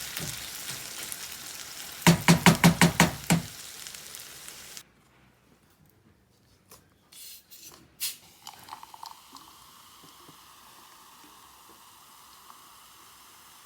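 Food sizzling and frying in a pan, with a quick run of about eight loud knocks about two seconds in. The sizzle cuts off suddenly at about five seconds, leaving a few soft clicks and then a faint steady hum.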